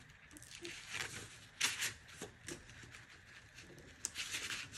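Crepe paper rustling and crinkling as hands unfold and smooth a glued paper leaf flat, in a few short bursts, the strongest about a second and a half in and near the end.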